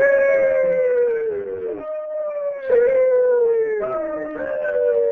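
A dog howling: three long howls in a row, each sliding slowly down in pitch.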